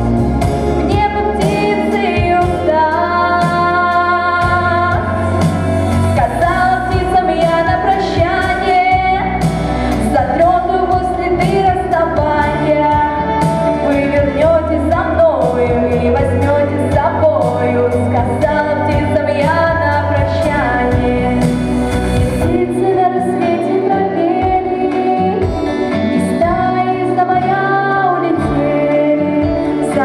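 A young woman singing a song solo into a handheld microphone over instrumental accompaniment. The deep bass of the accompaniment drops away about three-quarters of the way through while the singing carries on.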